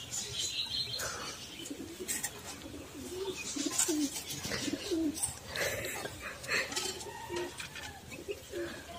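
Pigeons cooing: a run of short, low coos repeating from about three seconds in.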